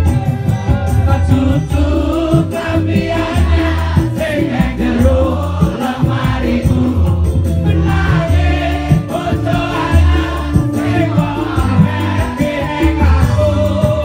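Live campursari band playing loudly, with a male singer on the microphone and the crowd singing along.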